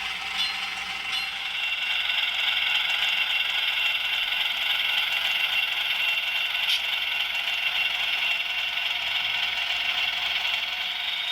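HO scale model train running along the track: a steady whir of its motor and gearing, with a few light clicks in the first second or so.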